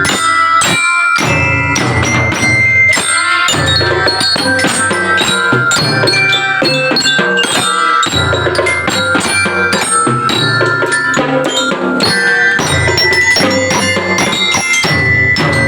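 Drum band playing: a melody on struck metal bell lyres (belira), ringing bright notes over a steady beat of marching drums.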